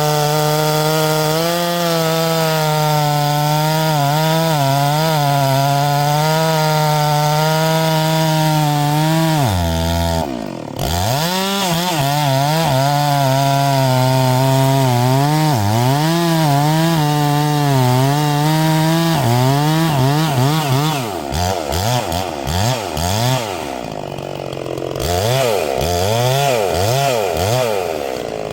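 Large two-stroke gas chainsaw cutting through oak under load, its engine note wavering as the chain bites. About ten seconds in the revs drop sharply and climb back, and over the last several seconds the engine revs up and down repeatedly.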